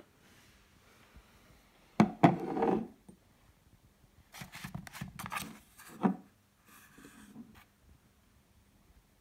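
A cardboard perfume box and a glass perfume bottle being handled on a hard shelf: two sharp knocks about two seconds in, then rubbing and sliding that ends in another sharp knock about six seconds in, and a little faint rustling.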